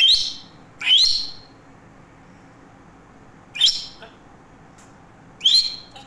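African grey parrot whistling four short rising calls: two close together at the start, one about three and a half seconds in, and one near the end.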